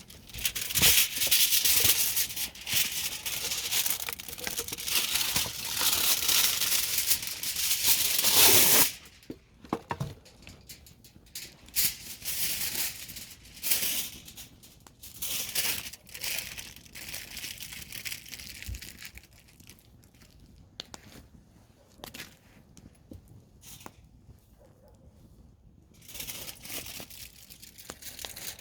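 Campfire burning: a dense crackling rush for the first nine seconds or so, then scattered sharp pops and shorter flurries of crackle that grow quieter toward the end.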